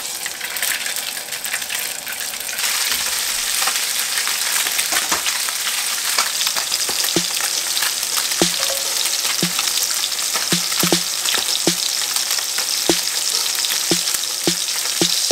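Salmon cubes frying in hot oil in a pan: a steady sizzle with frequent sharp pops of spattering oil. The sizzle grows louder about two and a half seconds in.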